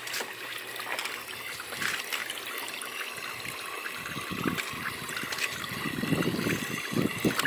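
Water trickling and splashing in a tilapia tank as a hand dip net is worked through it, the splashes coming irregularly and growing stronger in the second half.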